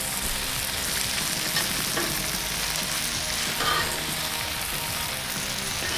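Bacon strips and sausage patties sizzling steadily on a hot flat-top griddle, with a few brief light scrapes and taps of a metal spatula on the cooking surface.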